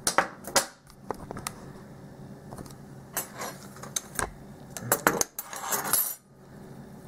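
Small metal tools and a padlock being handled on a work surface: scattered light metallic clinks and clicks, a quick cluster of them about five seconds in, then a short scraping rustle.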